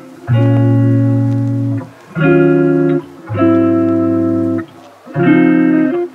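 Instrumental background music: a run of held chords, each lasting about a second and a half with short breaks between them.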